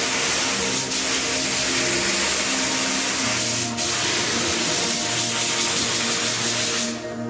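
Compressed-air spray gun hissing steadily as it sprays primer onto aluminium parts, dipping briefly twice and cutting off shortly before the end. Background music with steady tones runs underneath.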